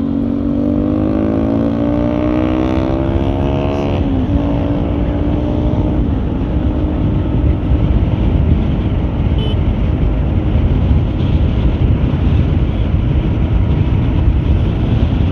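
Single-cylinder Bajaj Pulsar RS200 engine with an aftermarket exhaust, revving up as the bike accelerates. Its pitch climbs for about four seconds and drops sharply at a gear change. After a few more seconds the engine note sinks under a steady rush of wind on the microphone.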